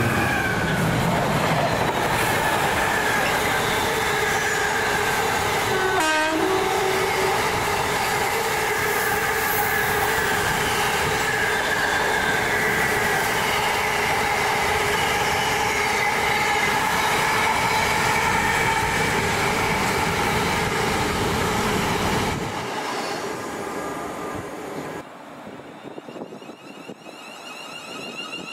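A train passing close by on the main line: steady loud rail and wheel noise with several ringing tones over it, dropping away about 22 seconds in and fading out.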